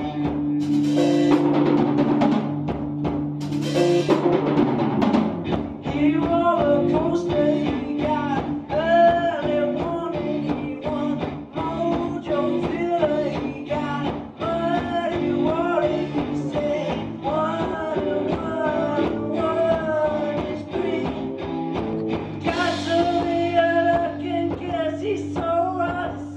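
Live rock band playing electric guitars, bass guitar and drum kit. The first few seconds are held chords with drum hits, and a singer comes in at the microphone about six seconds in and sings on to the end.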